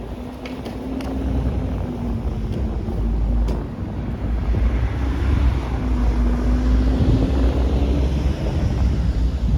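Wind buffeting the microphone as a heavy, rumbling roar that grows louder after the first second. A faint steady hum sits underneath it.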